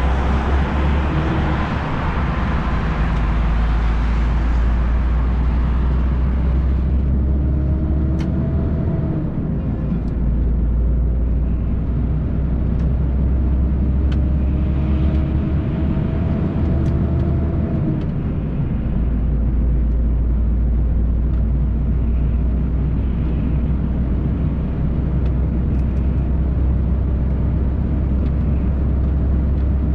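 MAN TGX truck's diesel engine and road noise heard from inside the cab while driving: a deep steady rumble, with the engine note rising in pitch as it pulls and the rumble dipping briefly about nine and eighteen seconds in. A hiss of road and wind noise fades out about seven seconds in.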